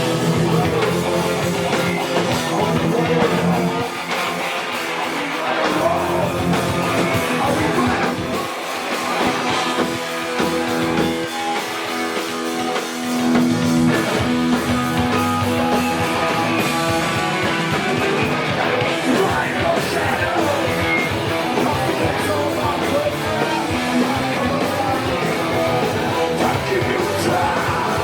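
Hardcore punk band playing live: electric guitars, drums and vocals. The bass end drops away briefly about four seconds in, and again from about eight to thirteen seconds in, before the full band comes back in.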